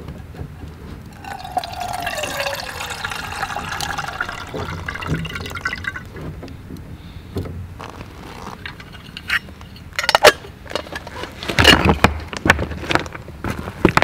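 Water running from a water tank's spigot into a metal camping kettle for about five seconds, with a ringing tone that slides down in pitch as it fills. Near the end come sharp knocks and clatter.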